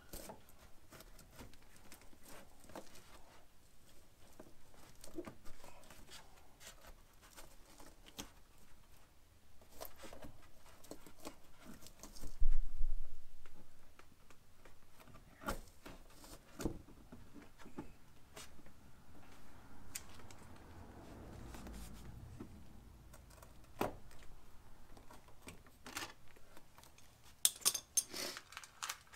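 Thin aluminium sheet panel being handled and pressed into place by hand: scattered light taps, clicks and rustles, with one loud thump about twelve seconds in and a quick run of sharp clicks near the end.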